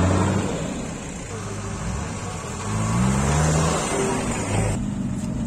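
Off-road 4x4 engine revving up about three seconds in, its pitch rising, over steady engine and outdoor noise. The background changes abruptly near the end.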